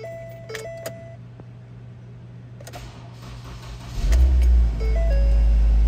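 2009 Ford Focus 2.0-litre four-cylinder engine cranked and catching about four seconds in, then settling into a steady idle. Two-note dashboard warning chimes sound at the start and again about five seconds in.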